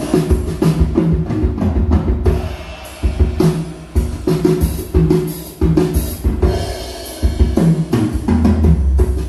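A drum-kit test track played through loudspeakers driven by an RDW NR10004MK3 power amplifier: kick drum, snare and cymbal hits in a steady beat with a heavy low end, starting suddenly at the opening.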